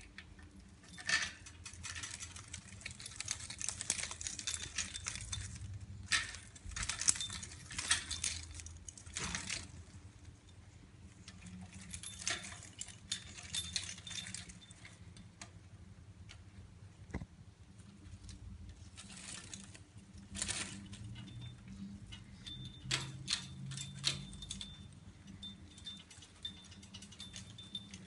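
Caique parrot playing roughly with the hanging toys on its bird gym: irregular bursts of jangling, rattling and clinking with quieter gaps between.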